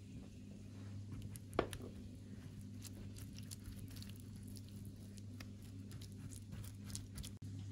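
Pastry brush dabbing oil onto hollowed-out potato halves in a glass dish: faint soft wet taps and clicks, with one sharper tap about a second and a half in, over a steady low hum.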